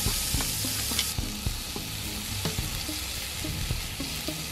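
Thick beef rump steak sizzling steadily on the hot grill plate of an Ozpig wood-fired cooker, with many small crackles and pops of spitting fat.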